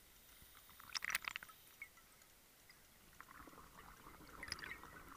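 Scuba regulator exhaust bubbles heard underwater: a short crackling burst of bubbles about a second in, then a longer stretch of bubbling from about three seconds in.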